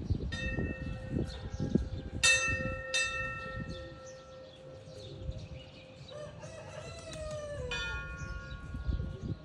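A rooster crowing once, a long call that rises, holds and drops off, over the second half. Earlier, three sudden clear ringing tones, bell-like, each holding and fading over a low rumble.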